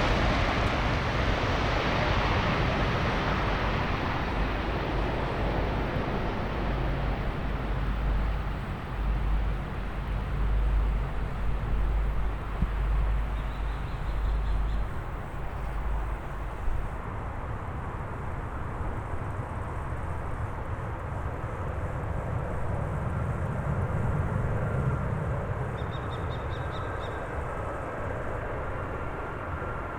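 Jet airliner's engine noise fading away after it passes, leaving a low rumble that eases off about halfway through. A few short bird calls come near the middle and near the end.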